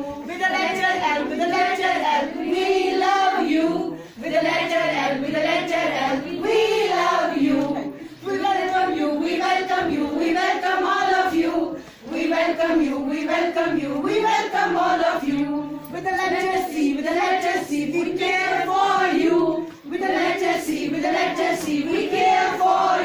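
Group of children singing together in unison, in phrases of about four seconds with a short break for breath between each.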